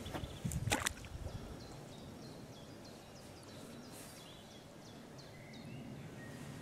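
A brief rustling thump under a second in, then faint outdoor ambience with small birds chirping over and over.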